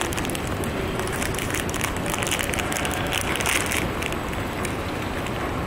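A small clear plastic packet crinkling and crackling as it is torn open by hand, a quick run of crackles that stops about four seconds in, over steady background noise.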